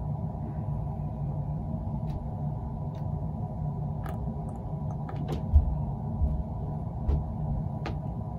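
Small clicks and a few soft thumps from handling a plastic medication syringe while squirting PVA glue into a hardcover book's spine, over a steady low hum of room noise. The loudest thump comes about halfway through.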